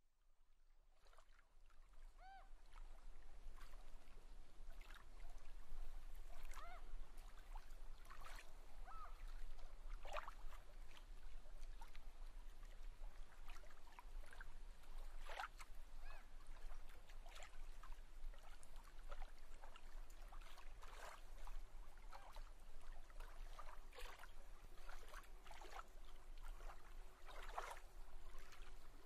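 Faint water sounds, trickling and lapping with scattered small plinks, fading in over the first few seconds, over a steady low hum.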